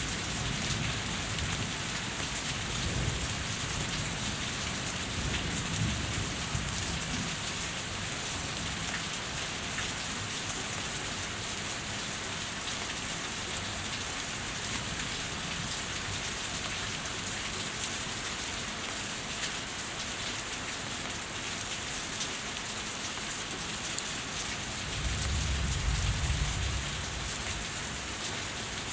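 Steady rain falling and running off a house, a continuous hiss. Low thunder rumbles through the first several seconds, and again more loudly a few seconds before the end.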